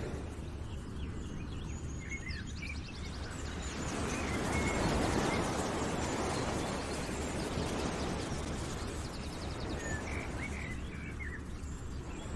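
Nature ambience: a steady rushing wash like surf or wind that swells around the middle, with scattered bird chirps and a couple of quick trills near the start and again near the end.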